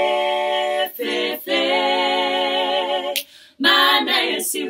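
Women's vocal group singing a cappella in close harmony, holding long sustained chords. The chords break off briefly about a second in and again at about a second and a half, then stop for a breath just past the three-second mark before the voices come back in.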